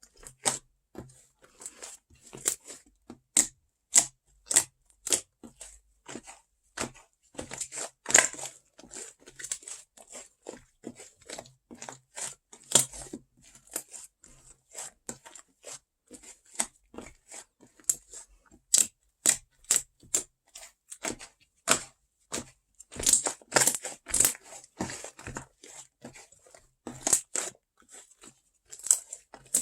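Fluffy slime being squeezed, poked and stretched by hand, giving a run of irregular sticky clicks, crackles and small pops, with a few louder clusters of crackling.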